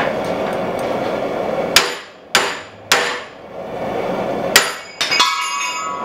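Hammer blows on a red-hot hatchet head clamped in a bench vise, striking to bend the bit back: several sharp, irregularly spaced strikes starting about two seconds in, one near the end leaving a short metallic ring. Before the first blow there is a steady rushing noise.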